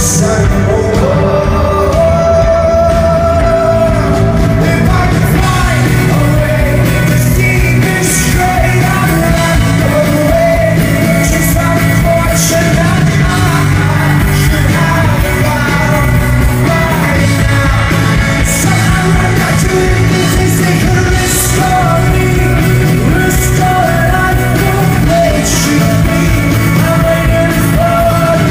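Rock band playing live, with a lead singer over guitars, bass and drums, loud and continuous.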